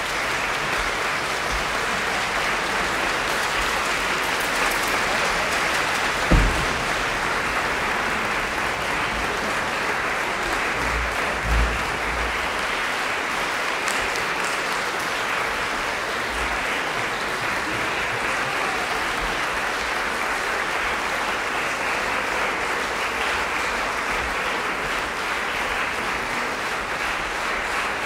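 Concert-hall audience applauding steadily. Two low thumps stand out, the louder about six seconds in and another about eleven seconds in.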